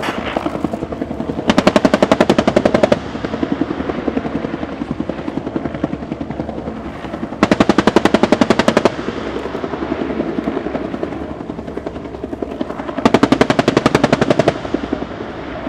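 An AH-1S Cobra attack helicopter's M197 three-barrel 20 mm rotary cannon fires three rapid bursts, each about a second and a half long and a few seconds apart. Under them runs the steady sound of the helicopter's rotor and turbine engine.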